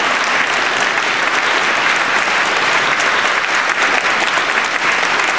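Concert audience applauding steadily, a dense unbroken patter of many hands clapping.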